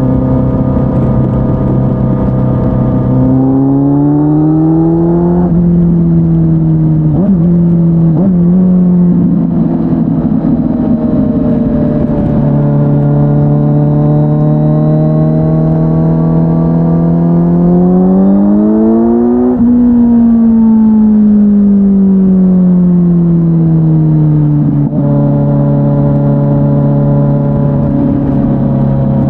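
Kawasaki Z900 inline-four through an SC-Project S1 exhaust on the move. The engine note holds steady, rises under acceleration a few seconds in and drops at a gear change, cruises steadily, climbs again about two-thirds through, then falls away as the bike slows and settles to a steady note near the end.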